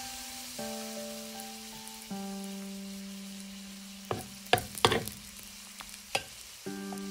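Chijimi batter sizzling faintly in a hot nonstick pan while a slotted spatula spreads it thin, scraping and tapping against the pan in a handful of sharp knocks between about four and six seconds in. Soft background music with held chords plays throughout.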